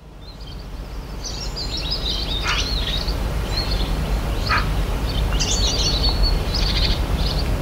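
Birds chirping and trilling in quick, high, overlapping phrases over a steady low rumble, fading in at the start.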